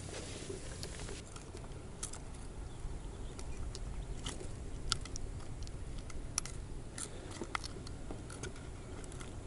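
Steel locking forceps working a lure hook out of a pike's mouth: irregular sharp metallic clicks and small rattles over a low background rumble.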